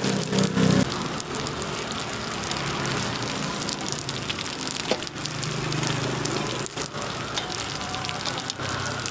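Hot oil sizzling and crackling steadily as egg batter fries in a multi-cup metal pan, with scattered sharp crackles.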